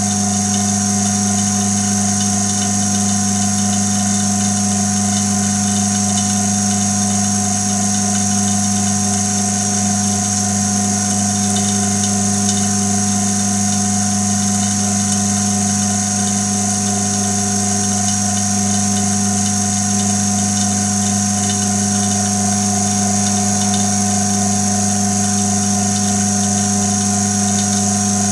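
Electric vacuum pump and high-voltage supply of a homemade Farnsworth-Hirsch-Meeks fusor running while the fusor is lit: a loud, even hum with a high whine over it, unchanging throughout.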